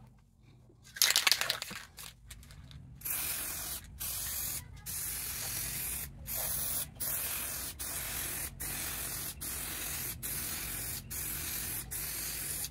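Aerosol spray-paint can spraying in a run of short bursts of hiss with brief breaks between them, starting about three seconds in. A short, loud burst of noise comes about a second in.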